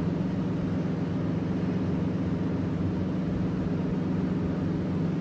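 A steady low hum that holds unchanged throughout, with no breaks.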